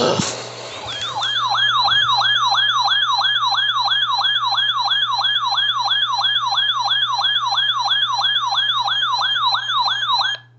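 An electronic siren-style alert tone sweeps rapidly up and down, about three times a second, and cuts off abruptly near the end. It follows a brief burst of static at the start, with a steady low hum underneath.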